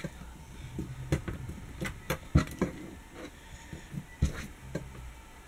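Slime mixed with Play-Doh being pressed and kneaded by hand on a tabletop: irregular small clicks, pops and soft squishes, the sharpest about two and a half seconds in.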